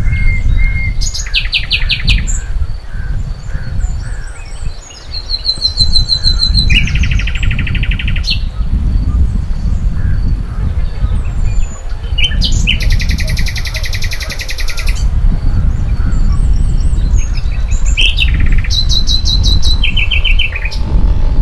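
Birds singing in short bursts of rapid, trilled notes, about five phrases a few seconds apart, over a steady low rumble.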